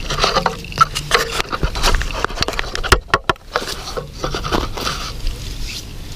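Irregular scraping, rubbing and knocking from handling the dirt bike and oil drain pan, with a few sharp clicks about three seconds in, quieter near the end.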